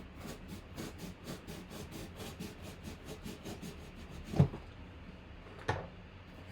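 Packaging being handled and opened: a quick run of crinkling and rustling, then two thumps, the first and louder about four seconds in, the second about a second later.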